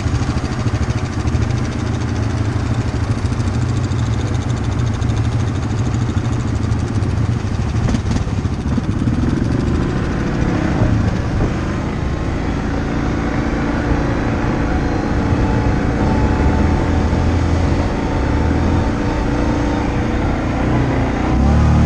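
ATV engine running under way on an off-road trail, its pitch rising and falling with the throttle through the second half.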